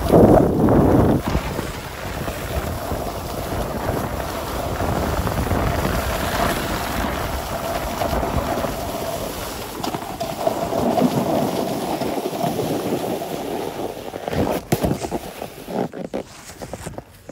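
Snowboard sliding and scraping over groomed, hard-packed snow, with wind rushing over the microphone, loudest in a surge right at the start. Near the end the sliding breaks into a few short uneven scuffs and knocks as the board comes to a stop.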